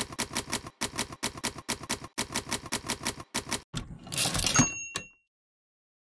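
Manual typewriter keys striking in a rapid, even string of clacks. About four seconds in comes a carriage return with a short bell ding.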